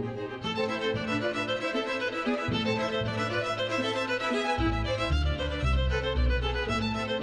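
Background music with a prominent fiddle line over shifting bass notes.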